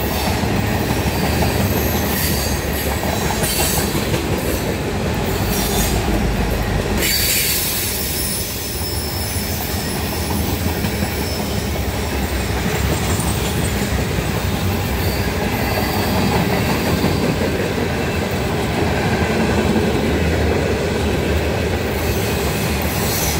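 Freight cars of a mixed freight train rolling past: a steady rumble of steel wheels on rail, with clicking over rail joints and a thin, high wheel squeal.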